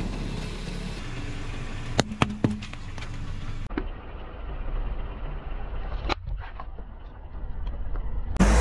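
Car tyres rolling slowly over small objects on asphalt: a low rumble with sharp cracks and pops as things are crushed under the wheels, a cluster about two seconds in and single ones near four and six seconds.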